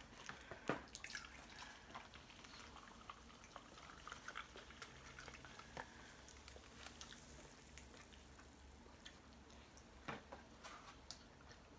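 Near silence with faint, scattered small clicks and taps, a little stronger about a second in and again near the end.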